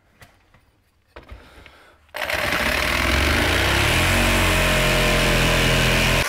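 A corded jigsaw cutting a round hole in OSB wall sheathing. After a few light clicks, the saw starts suddenly about two seconds in and runs steadily as the blade cuts through the board.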